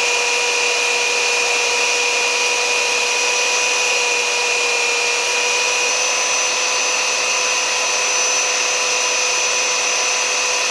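Chicago Electric handheld belt sander, set upside down, running steadily with an even whine while a small plastic latch part is pressed against the moving sanding belt.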